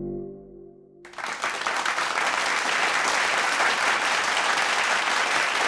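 Sustained keyboard notes of intro music fade out in the first second. Then audience applause starts abruptly and goes on steadily.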